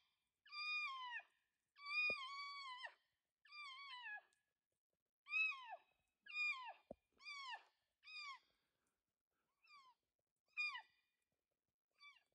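Elk mewing: a string of about ten high, whiny calls, each half a second to a second long and dropping in pitch at the end, coming thick at first and then fainter and sparser.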